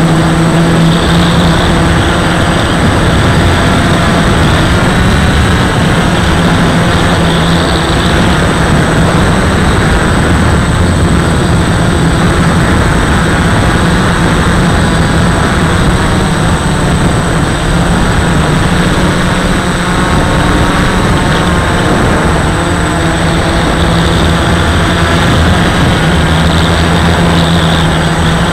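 Flying3D X8 quadcopter's brushless motors and propellers in flight, picked up by the camera it carries: a loud, steady buzz whose pitch wavers a little now and then as the throttle changes, with a thin high whine above it.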